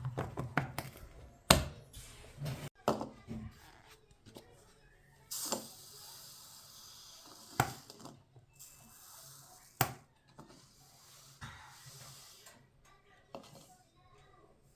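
Kitchen handling sounds: scattered sharp knocks and clinks of dishes and utensils, with a short hiss about five seconds in.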